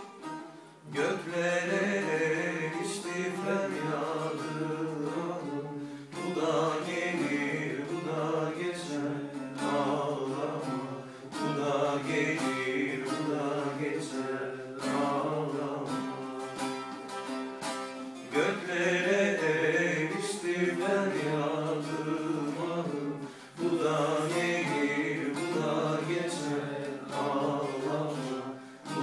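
Bağlama (long-necked Turkish saz) played in a folk-song melody, phrase after phrase with short breaks between them.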